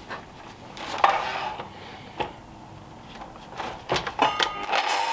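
Oak workpieces being handled on a workbench, a few sharp wooden knocks and rubs. Near the end a power tool's motor starts and runs with a steady hum.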